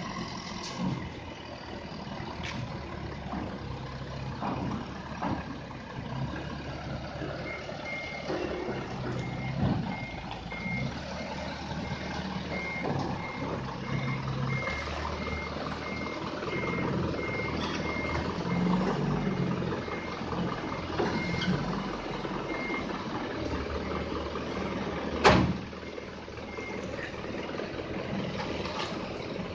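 Toyota forklift running while it maneuvers a load of steel plates, its reversing alarm beeping about twice a second for some fifteen seconds. One loud metal clank near the end as the steel plates are set down.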